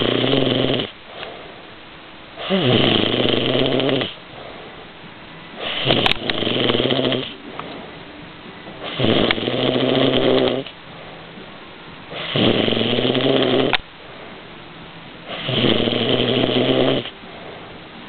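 A person snoring loudly and regularly: a long snore about every three seconds, each lasting about a second and a half, with quieter breathing gaps between.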